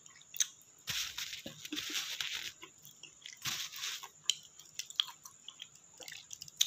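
A person eating spicy instant noodles: close mouth sounds of chewing, with wet clicks and two longer airy hisses of breath or slurping, about a second in and again after three and a half seconds.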